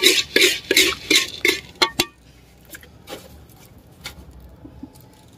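Corn kernels in ghee being stirred by hand against the inside of a clay pot, in short rasping strokes about three a second. The stirring stops about two seconds in with a sharp click, leaving only a few faint ticks.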